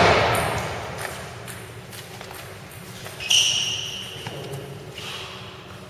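Table tennis point ending with a hard bat-on-ball hit that echoes around the sports hall, followed by a few light ball ticks and a short high squeak about three seconds in.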